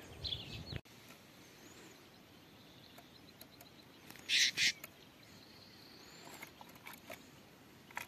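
Goldfinch calls: two short, harsh calls close together about four and a half seconds in, with faint high chirps around them.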